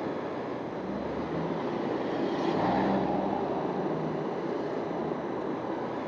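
Steady wind and road noise from a Honda CBR250 motorcycle riding through traffic, with its engine note faint underneath and a slight swell about two and a half seconds in.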